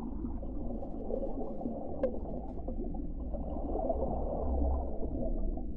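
Muffled underwater ambience at the bottom of a swimming pool: a steady low rumble, with a single click about two seconds in.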